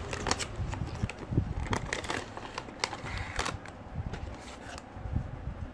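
Hands unpacking a small cardboard product box and handling its plastic parts: irregular clicks, taps and rustles of cardboard and plastic, with a low handling rumble underneath.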